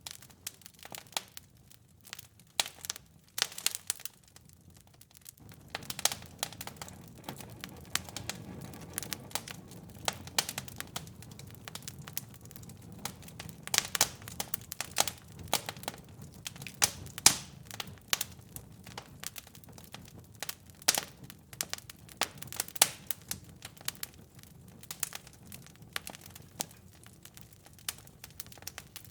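Wood fire in a fireplace crackling, with frequent irregular sharp pops and snaps. About five seconds in, a low, steady rumble of burning flames rises underneath the crackle.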